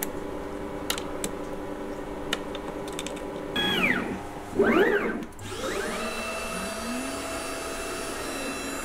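A few light clicks of a hex key on clamp screws over a steady machine hum. Then, as a homemade CNC router starts its program, motor whines rise and fall in pitch with the axis moves, and the spindle spins up with a rising whine that levels off into a steady high tone.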